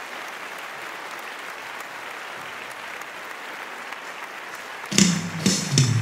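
Steady applause from a congregation; about five seconds in, the band comes in with drum hits and keyboard.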